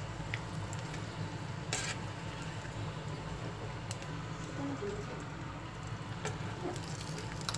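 Dried fish (buwad) frying in shallow oil in a pan, a steady sizzle with a low hum beneath it. A few sharp clicks of metal tongs against the pan as the pieces are lifted and turned.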